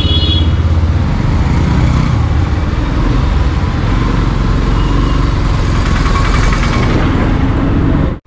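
Motorcycle engine running as the bike rides along a town street, a steady loud rumble mixed with road and wind noise. A short horn beep sounds right at the start, and the sound cuts off abruptly near the end.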